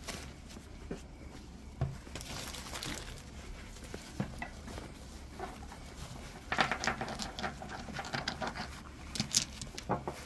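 Rustling and crackling of wrapping material with scattered small clicks as a wrapped rock specimen is opened and handled. The crackling gets denser about six and a half seconds in, and a few sharper clicks come near the end.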